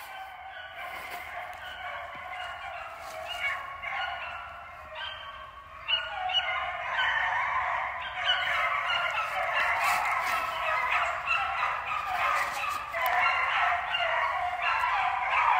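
A pack of hounds baying on a trail, many overlapping cries, faint at first and growing fuller and louder about six seconds in: the dogs have struck a track and are running it.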